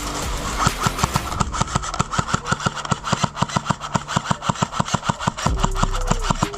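Background music with a fast, even beat of about eight strokes a second over a low bass line and held notes that change pitch in steps.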